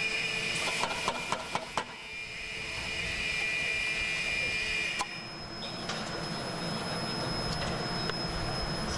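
Steady workshop machinery noise with a high whine that cuts off with a click about five seconds in. A few sharp knocks come about a second in as the wooden pattern and metal moulding flask are set in place for sand moulding.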